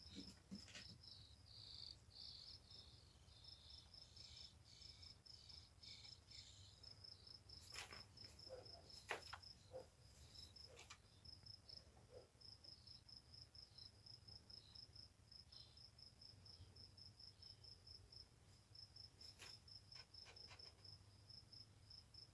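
Faint, steady chirping of a cricket, about three high chirps a second, with a few soft scratches from a rabbit digging in hay and dirt.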